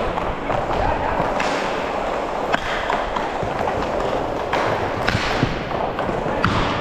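Inline skate wheels rolling and scraping on plastic sport-court tiles, with a few sharp clacks of sticks and puck.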